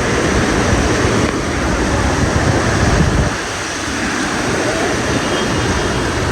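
Heavy rain pouring, with wind buffeting the microphone: a dense, steady rushing noise over a low rumble that eases a little about three and a half seconds in.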